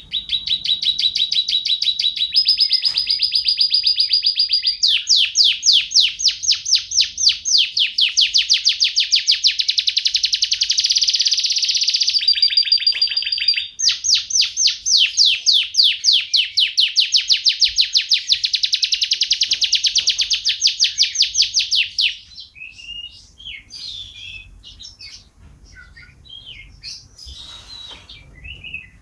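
Domestic canary singing a long, continuous song of rapid trills, switching between trill types of different pitch. After about twenty-two seconds the song gives way to quieter, scattered chirps.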